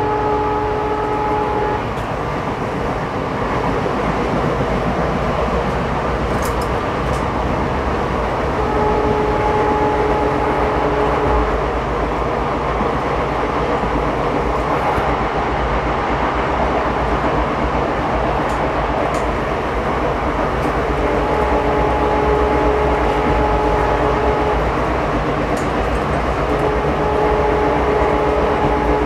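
Indian Railways ICF passenger coach running along the track: a steady rumble of wheels and coach body. A steady, multi-pitched tone rises above it four times, a few seconds each.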